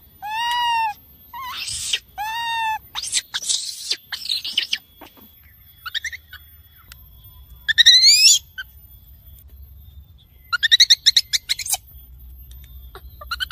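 Baby macaque calls, a lure recording of an infant calling for its mother. A few arching, wavering coos come first, then harsher screams, then shrill rising squeals and, in the second half, a quick run of short squeaks.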